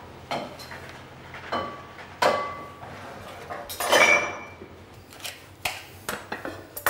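Kitchen clatter: a string of knocks and clinks, some ringing briefly, as an oven door is opened and a terracotta Römertopf clay baking dish is taken out and set down on a wooden board. The loudest clatter comes about four seconds in, with small knocks near the end.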